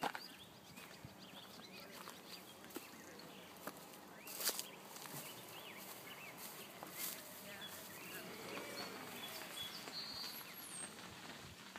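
Faint outdoor garden ambience with distant voices and short chirps, broken by a few sharp clicks, the loudest about four and a half seconds in.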